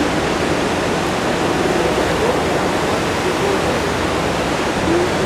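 Steady, loud rushing of white water in the Niagara River rapids, an even roar with no breaks.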